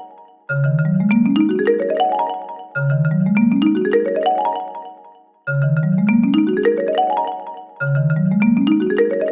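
Cartoon sound effect: a mallet instrument playing a dreamy ascending glissando, a quick run of separate notes climbing from low to high. It is played four times, each run rising over about two seconds and then ringing away.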